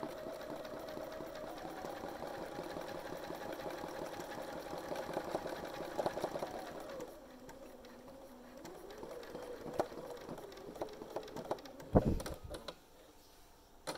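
Bernina 570 sewing machine stitching free-motion thread painting with its speed turned up: a fast, steady running whose pitch rises slightly at first. About seven seconds in it slows to a quieter, slower run. A sharp knock comes about twelve seconds in, and the machine then goes quiet.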